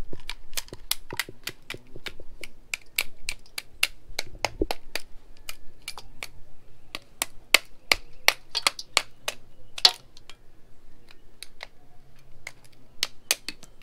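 A large cooked crab being broken apart with a knife and fingers over a steel bowl: shell cracking and the blade tapping and scraping make a run of sharp, irregular clicks, several a second, thinning out near the end.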